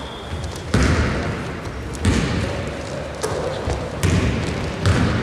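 Basketball dribbled on a hardwood court: about five bounces, roughly one a second, each a low thump with a short echo from the hall.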